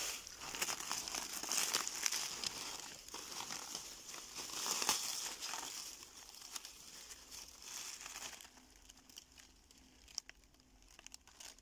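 Dry corn husks crackling and tearing as an ear of mature white field corn is husked by hand. The dry rustling dies down about eight seconds in.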